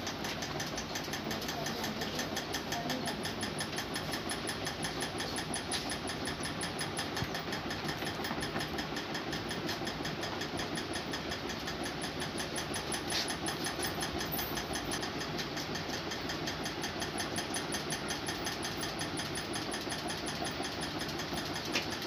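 A machine running steadily with a fast, even beat.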